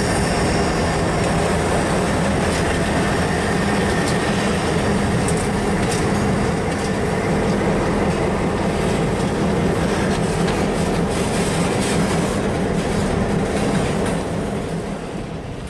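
Freight train passing close by: several diesel locomotives run past with a steady engine rumble, their wheels clicking over the rail joints. The sound eases near the end as the locomotives give way to freight cars rolling by.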